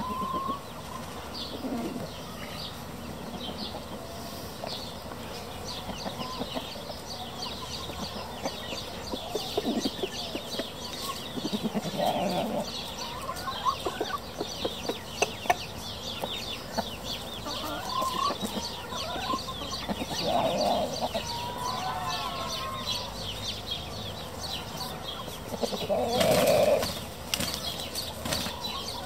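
Marans rooster and hens clucking and giving short calls now and then while foraging, over a fast, high chirping in the background. Near the end comes a loud flurry of flapping wings as the rooster mounts a hen.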